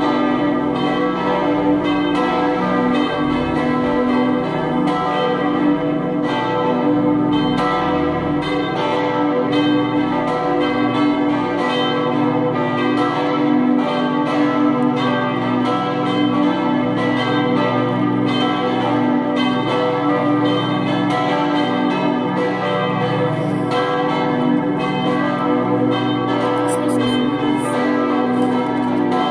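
Swinging church bells ringing, their strikes overlapping in a continuous peal with no pauses.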